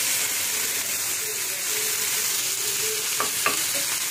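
Chicken and vegetables sizzling steadily in hot coconut oil in a pan while being stirred with a spatula, with two brief scrapes a little after three seconds in.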